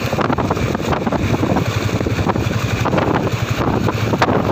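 Wind buffeting the microphone on a moving motorbike, a steady loud rush with the bike's road and engine noise underneath.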